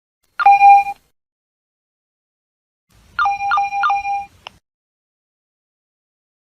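Nokia mobile phone's monophonic electronic alert tones: one short beep, then about three seconds in a run of three quick beeps, followed by a faint click.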